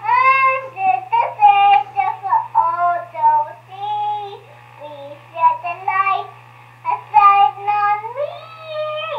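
A young child singing short gliding phrases, heard through the speaker of a Fisher-Price 900 MHz baby monitor, over a steady low hum.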